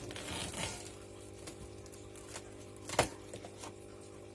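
Cardboard package being handled and unpacked: rustling in the first second, a few light clicks, and one sharp knock about three seconds in.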